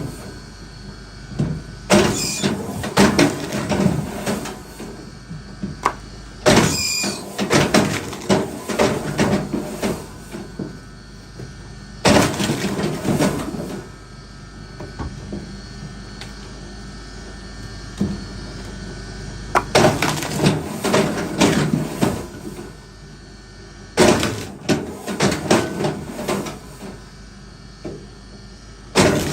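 Bursts of sharp knocks and clattering, each a second or two long, coming every few seconds with quieter gaps between them.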